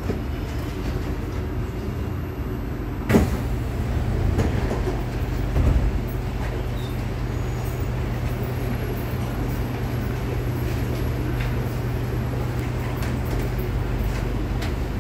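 C751B MRT train standing at a platform, heard from inside the car: its passenger doors unlock with a sharp clunk about three seconds in and slide open with a few duller knocks. A steady low hum from the train's equipment runs underneath.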